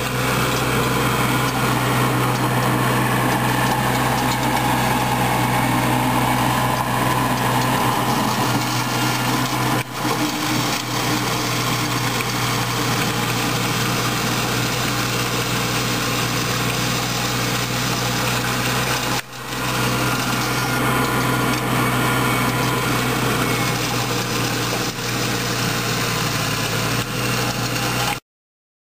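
New Holland compact tractor engine running steadily, driving a red rear-mounted snowblower. The sound dips briefly about ten and nineteen seconds in, then cuts off abruptly near the end.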